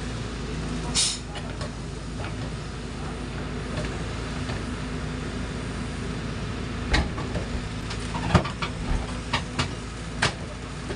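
Diesel engine of a Cat crawler excavator running steadily, with several sharp knocks, one about a second in and a cluster in the second half.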